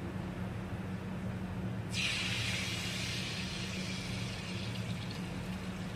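Thin rice-flour malpua batter poured from a ladle into hot oil in a kadhai, setting off a sudden sizzle about two seconds in that slowly dies down as the batter starts to fry. A steady low hum sits underneath.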